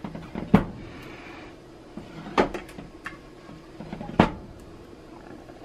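Ladle knocking and scraping against a sauce pot as meat sauce is scooped out and spooned on: three sharp clacks about two seconds apart, with lighter clicks between, over a faint steady hum.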